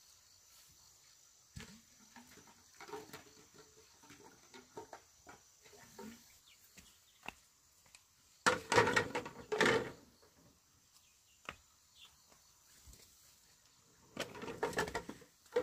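Hollow green bamboo poles clattering and knocking against each other as they are dropped onto a dirt yard: a loud burst of clatter a little past halfway, a shorter one near the end, with light scattered knocks in between.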